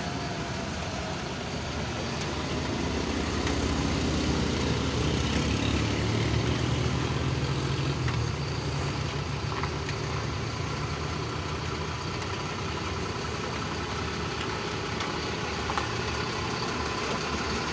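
Motor vehicle engine running steadily, its low drone swelling louder for a few seconds about a quarter of the way in before settling back.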